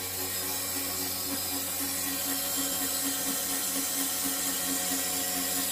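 Bosch 044-style knockoff in-line electric fuel pump running steadily, a pulsing hum under a loud hiss. It is way too loud for the car.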